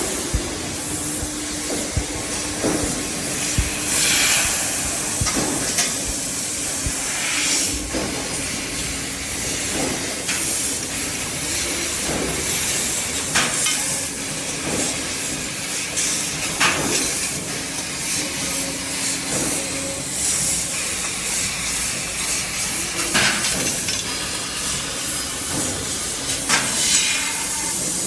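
Metalworking machinery running: a steady hiss and low hum, with sharp knocks every second or two.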